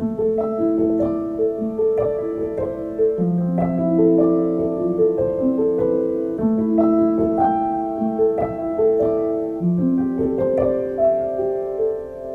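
Background piano music: a slow melody of overlapping sustained notes.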